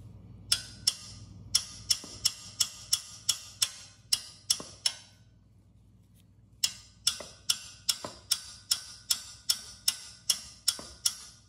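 Hammer striking the end of a box-end wrench on a seized engine mounting bolt, trying to shock it loose: a steady run of sharp metallic taps, two to three a second, stopping for about a second and a half midway and then starting again.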